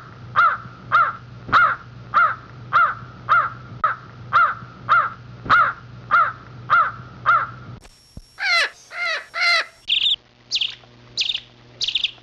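A bird's harsh calls, repeated evenly about twice a second over a low steady hum. After about eight seconds they give way to higher, shorter calls that drop in pitch.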